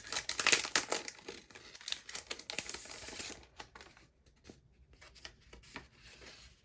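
Packaging being torn open and crinkled by hand for about three seconds, then quieter rustles and small clicks of paper items being handled.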